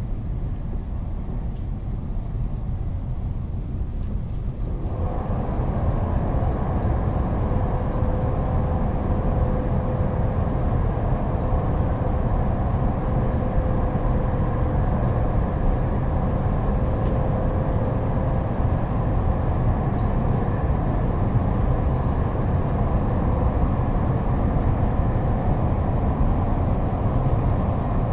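Inside a moving train carriage: a steady rumble of the train running on the rails. About five seconds in it grows louder and fuller, and a faint steady whine runs through the middle stretch.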